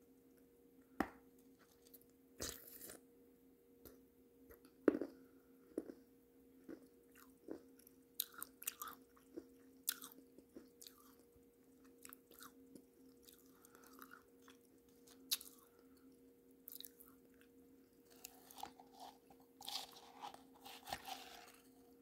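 Close-up mouth sounds of eating thick clay pot paste off a spoon: irregular wet smacks, clicks and crunchy chewing, thickest near the end. A low steady hum runs underneath.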